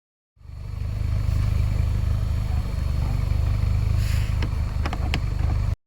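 Engine running steadily with an even low pulsing rumble, starting and cutting off abruptly, with a few sharp clicks near the end.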